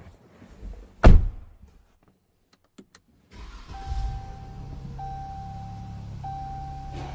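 A single heavy thump about a second in. Then, a little after three seconds, the Chrysler 300C's engine starts and settles into a steady idle, now that a new fuel pump assembly is fitted. A thin steady high tone, broken a few times, sits over the idle.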